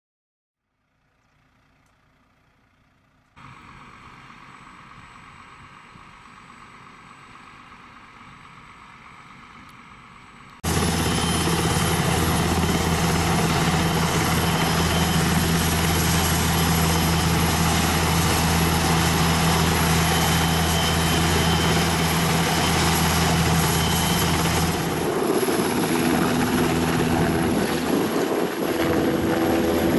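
Airbus NH90 twin-turbine military helicopter running, with a steady low rotor drone and a thin high turbine whine. The sound cuts in suddenly and loud about ten seconds in, after a fainter stretch, and its tone shifts near the end as the helicopter lifts into a hover.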